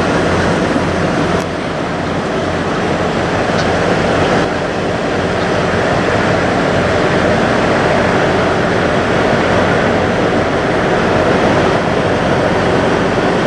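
Heavy diesel semi truck engine idling, a loud, steady rumble.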